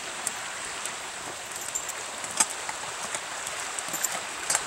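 Steady rushing hiss of a creek flowing over rocks, with a few sharp crackles from a small wood fire.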